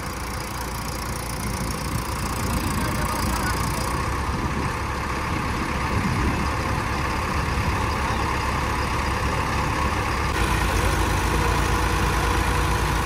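Tractor engine running steadily, getting louder over the first few seconds.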